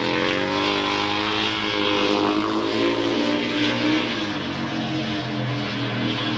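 Speedway motorcycle's 500 cc methanol-burning engine running hard, its note rising and falling as the throttle is worked through a slide in the turn and out onto the straight.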